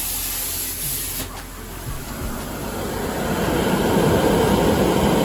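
Shop exhaust fan pulling air through the duct, its rushing noise swelling over a couple of seconds to a loud steady roar, as when the fan spins up to speed.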